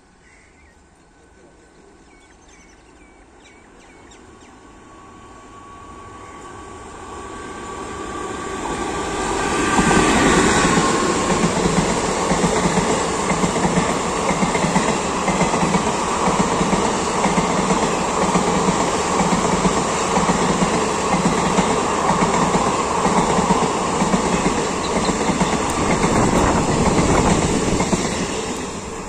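Passenger express train approaching, growing steadily louder over about ten seconds. Then its ICF coaches rush past at speed with a steady rhythmic clatter of wheels over the rail joints. The noise begins to fall away near the end.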